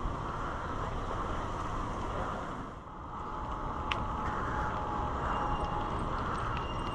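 Steady wind noise on the microphone and tyre rumble of a bicycle being ridden over asphalt, dipping briefly about three seconds in, with a short click just before four seconds.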